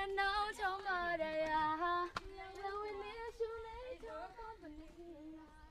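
A high female voice singing long, held, gently wavering notes. A sharp click comes a little after two seconds in, and the singing grows quieter toward the end.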